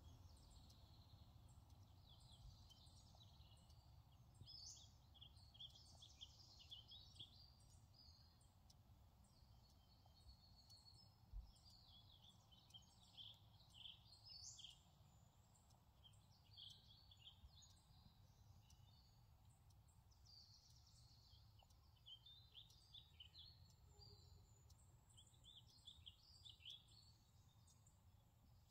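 Faint birdsong: a songbird singing repeated quick chirping phrases on and off, over a steady low background rumble. One brief low thump about eleven seconds in.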